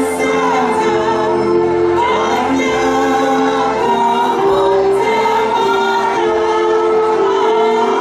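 Mixed women's and men's vocal group singing a medley of Indonesian folk songs together into microphones, in long held notes, over an amplified instrumental accompaniment with a steady bass line.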